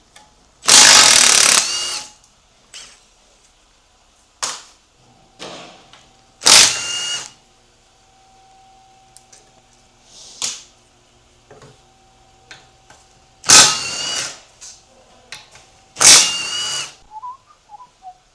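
A power tool running in four short bursts, the first the longest, with a rising whine in each as it spins up. This is bolts being run out of the 6L80 transmission's tail housing. Light clicks and knocks of metal parts come between the bursts.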